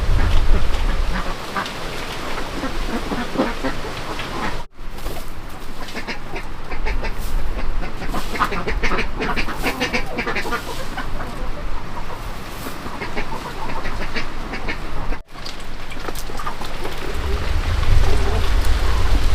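Ducks quacking, many short calls overlapping. A low wind rumble on the microphone rises near the end.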